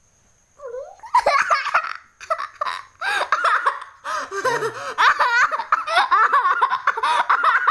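A young child giggling and laughing in rapid, high-pitched bursts, starting about half a second in and going on without a break.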